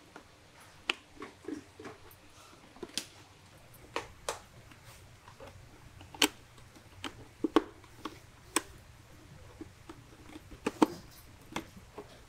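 Plastic and fabric parts of a motorcycle helmet being pressed and snapped into place by hand: irregular sharp clicks and knocks, a dozen or so, with soft rubbing and handling noise between them.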